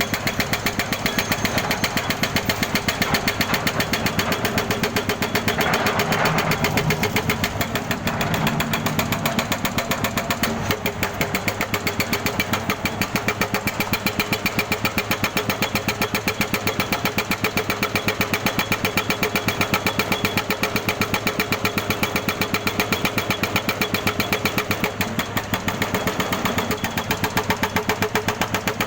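Jackhammer hammering continuously with a rapid, even beat.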